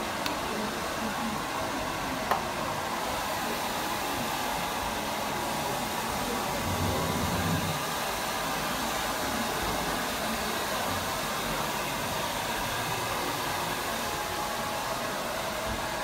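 Hair dryer running steadily, with one sharp click about two seconds in.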